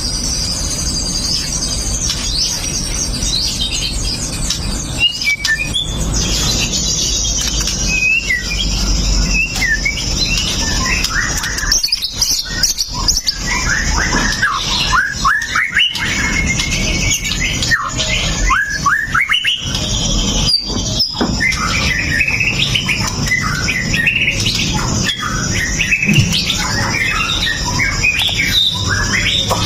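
White-rumped shama (murai batu) singing a fast, varied string of sharp whistles and chirps.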